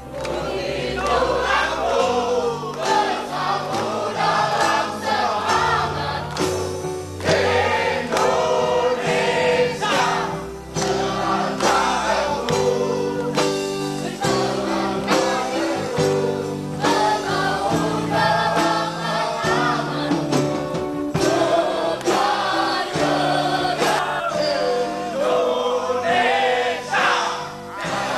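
A song performed live: several voices singing together over band accompaniment with a steady bass line.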